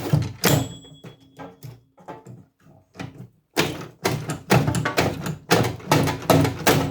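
Sharp metallic knocks and clanks from pulling the wiring and parts out of a microwave's steel casing, coming thick and fast in the second half, with music playing underneath.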